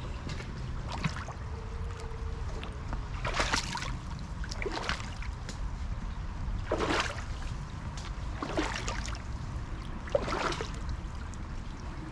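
Someone wading through fairly deep brook water, a slosh with each stride every second or two, over the steady rush of the flowing stream.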